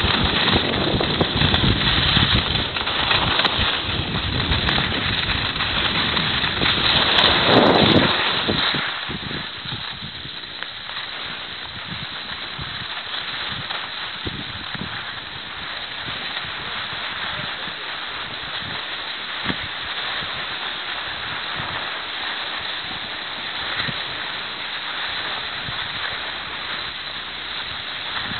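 Wind rushing over the microphone of a camera carried on a snowboard descent, mixed with the board sliding on packed snow. The rush is loud for the first eight seconds or so, then drops to a steadier, quieter hiss as the ride continues on gentler ground.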